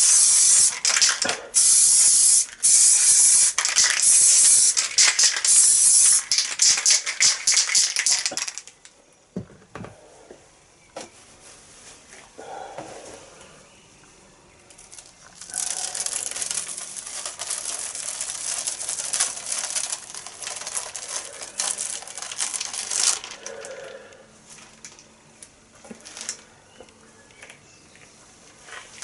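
Aerosol spray paint can spraying onto a stencil in a run of loud hissing bursts with short breaks, stopping about eight seconds in. The hiss returns more softly for several seconds later on.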